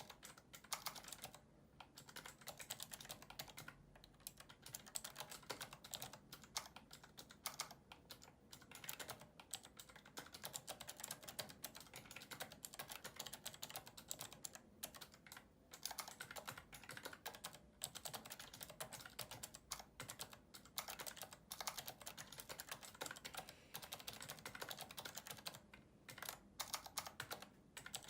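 Fast, continuous typing on a mechanical keyboard with clicky Cherry MX Blue switches, a dense run of keystroke clicks broken by a few short pauses.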